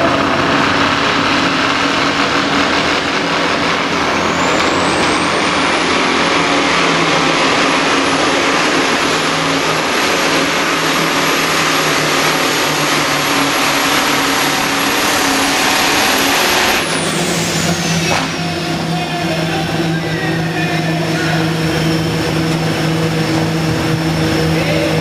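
Scania 142H pulling truck's diesel engine at full load dragging the weight sled, with a high turbo whistle rising about four seconds in and holding. About seventeen seconds in the pull ends: the whistle falls away and the engine drops back to a steady idle.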